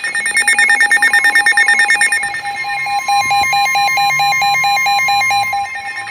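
Several NOAA weather radios sounding their alert alarms for a severe thunderstorm warning: fast electronic beeping, then about three seconds in a steady high tone joins while pulsed beeps keep going.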